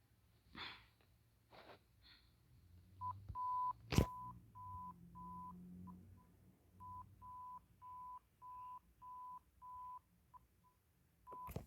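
Emergency alert tone: short beeps at a single pitch, a little over two a second, starting about three seconds in and broken by a couple of brief pauses. A few soft clicks come before it, and one sharp click about four seconds in.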